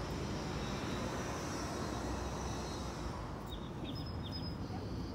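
Rushing noise of a passing vehicle that fades away about three seconds in, followed by a few short, high bird chirps near the end.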